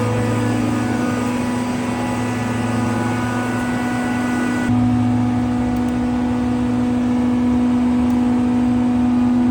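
Steady machine hum made of several constant tones, with no rhythm or pitch change. About five seconds in the sound changes abruptly: the higher tones drop away and the low hum gets slightly louder.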